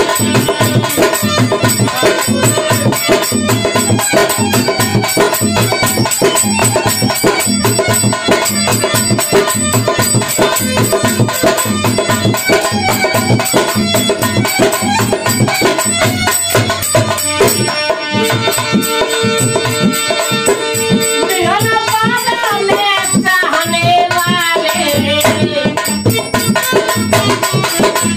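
Rajasthani devotional folk music with no singing: a dholak drum beats a fast, steady rhythm under harmonium melody. In the second half a long held note gives way to sliding, bending notes.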